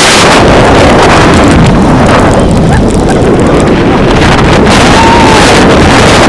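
Rushing wind buffeting the microphone of a rider's head-mounted camera on a roller coaster at speed, loud and steady with a rumbling low end.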